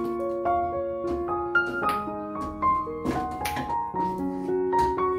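Background piano music: a slow melody of single held notes over soft lower chords.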